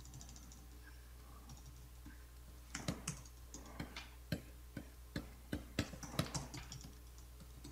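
Computer keyboard keys being pressed in an irregular string of clicks, about two or three a second, starting nearly three seconds in, over a faint steady low hum.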